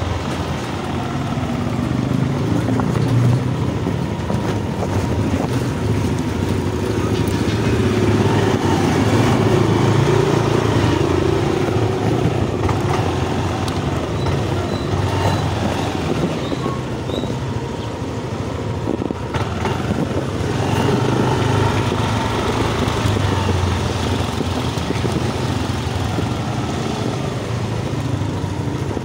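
Yamaha Mio Aerox S 155 scooter's single-cylinder engine running while riding, its pitch and level rising and falling with the throttle, over wind and road noise.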